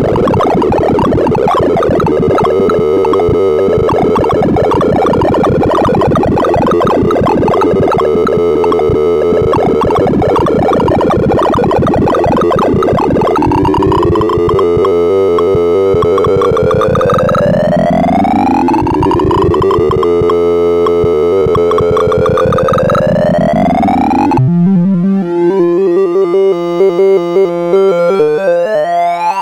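Synthesized beeps from the Sound of Sorting program, each array access played as a tone pitched by the element's value. The first half is a dense jumble of rapid notes. From about halfway, several overlapping rising glides sweep up. Near the end the pattern turns choppier and finishes in a steep rising sweep that cuts off.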